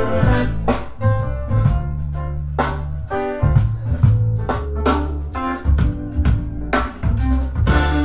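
Music with drum kit, a deep bass line and piano, played back over hi-fi loudspeakers during a listening demo.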